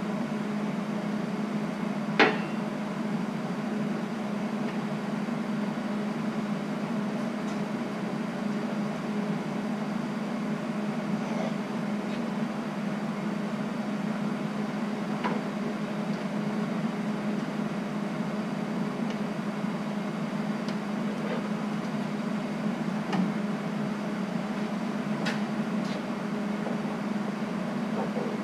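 A steady low machine hum in a workshop, with a few sharp metal clicks and clinks from handling exhaust pipe and tools; the loudest clink comes about two seconds in.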